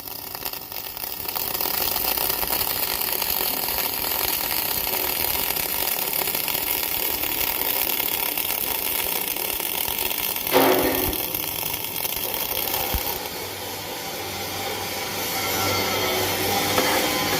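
Electric arc welding in the vertical (3G) position: the welding arc gives a steady hissing noise, with one sharp knock about ten and a half seconds in.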